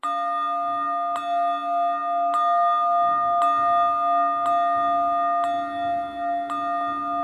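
A red wall-mounted metal bell struck with a soft-headed mallet about once a second, seven strikes in all. Each strike adds to a steady ringing of several tones that never dies away between them.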